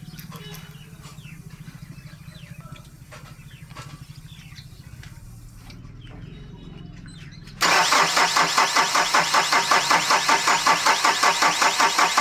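A low steady hum, then about seven and a half seconds in the starter of a Mahindra Bolero Pickup's common-rail diesel engine begins cranking it. It goes in an even rhythm of about five compression beats a second and does not catch: a no-start that the mechanics trace to air in the fuel line and an injector that is locking up.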